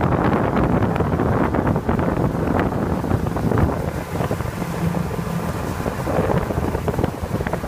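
Motorboat under way, its engine running steadily beneath heavy wind buffeting on the microphone.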